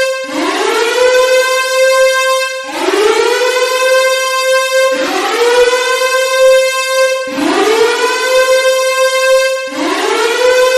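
Civil defense (nuclear warning) siren sounding loudly in repeated cycles. About every two and a half seconds it rises quickly from a low pitch to a steady high tone, holds it, then breaks off and starts again, five times over.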